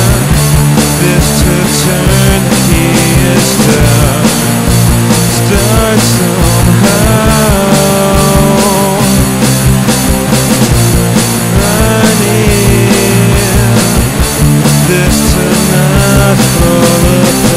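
A rock band playing an instrumental passage with no vocals: drums keep a steady beat under guitars and bass, and a melody line glides up and down in pitch.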